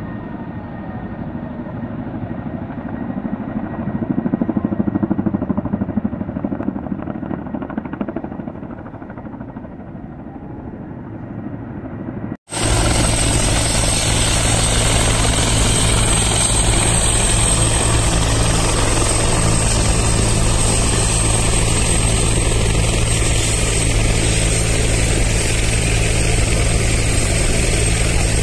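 Helicopter turbine and rotor running. At first distant and muffled, swelling and fading. After an abrupt cut about halfway through, it is close and loud: a steady heavy drone with a high steady turbine whine, from a helicopter running on the ground with its rotor turning.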